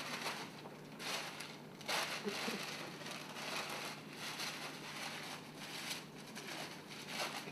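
Paper bag being crumpled and rustled in the hands, in uneven stretches of crackling.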